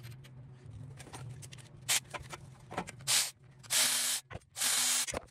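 Aerosol spray can hissing in four short bursts, the last two the longest at about half a second each.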